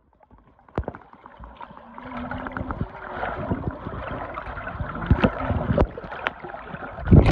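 Underwater sound in a swimming pool picked up by a submerged phone: muffled gurgling and bubbling with scattered knocks, ending in a loud splash near the end as the swimmers break the surface.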